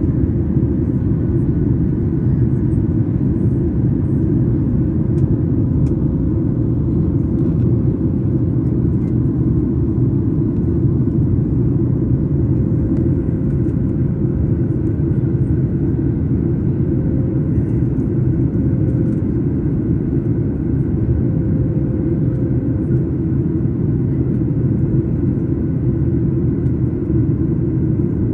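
Steady cabin noise of a Boeing 737 jet airliner in flight, heard from a window seat: an even low roar of engines and airflow with a faint steady hum above it.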